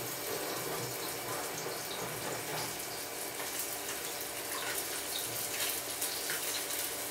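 Wire whisk beating a thin liquid sauce in a ceramic bowl: a steady watery swishing with faint ticks of the wires against the bowl.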